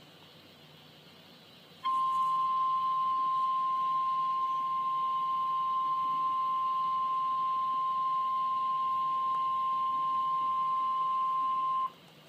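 Emergency alert attention tone: a single steady tone just above 1 kHz, the 1050 Hz weather-radio warning alarm. It starts about two seconds in, holds for about ten seconds and cuts off sharply, signalling that a severe thunderstorm warning follows.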